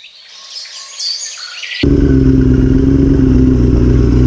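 Faint high bird chirps, then about two seconds in the sound cuts abruptly to a loud Yamaha R6 inline-four motorcycle engine running at steady revs.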